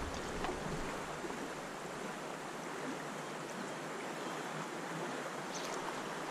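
Steady rushing of a shallow stream's current flowing over riffles around a wading angler.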